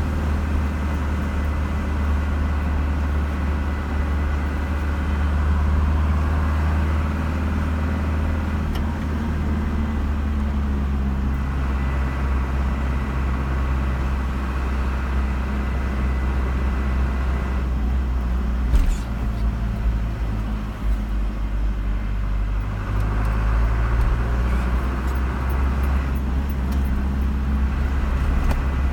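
A car driving on the road: a steady low engine and tyre rumble whose engine note shifts slightly a couple of times, with one short knock about nineteen seconds in.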